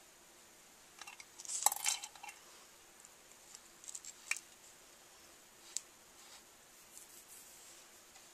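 Stiff 3D-pen plastic pieces being handled and fitted together over paper. A burst of rustling and clicking comes about a second in, followed by a few single sharp clicks and light taps.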